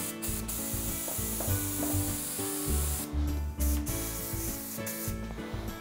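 A brush sweeping dust off a sanded plywood panel, a dry rubbing hiss that stops briefly about three seconds in and again near the end, over background music.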